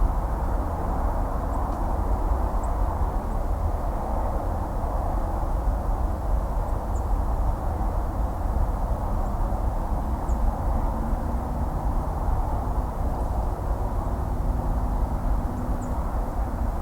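Distant highway traffic: a steady, unbroken rumble of tyres and engines with no single vehicle standing out. A few faint, very short high chirps sound now and then above it.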